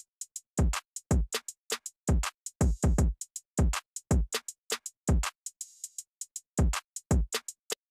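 An 80 bpm boom bap drum beat playing from FL Studio Mobile: deep kicks, snares and hi-hats in a loose, uneven pattern, with no melody heard between the hits.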